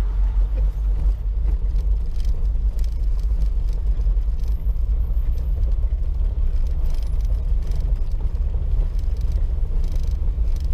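Opel Kadett C GT/E's four-cylinder engine running low and steady while driving, heard from inside the cabin, with a constant deep rumble and faint tyre noise over cobblestones.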